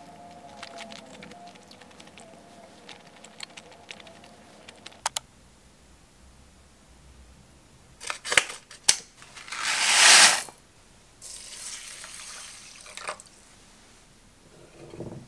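Uncooked rice poured from a bag into an empty glass bowl: a few scattered ticks of grains hitting the glass, then a loud hiss of pouring grains for about a second. A second, quieter pour follows, as the rice is covered with water for soaking.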